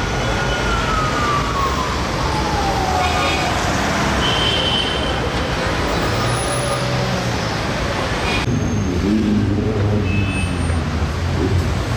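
Traffic noise of a convoy of cars and SUVs driving past on a city street, with a siren whose tone slides steadily down in pitch over the first five seconds.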